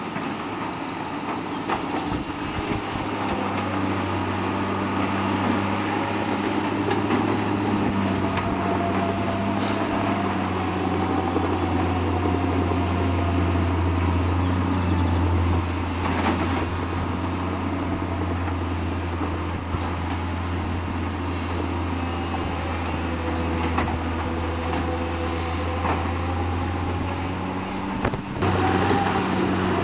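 Diesel engines of a bulldozer and an excavator working, a steady low drone whose pitch wavers slowly up and down as the machines load and ease off. Two brief high trills sound over it, about a second in and again about 13 seconds in.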